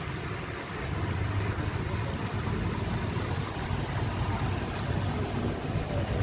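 A motor or engine running steadily with a low, even hum.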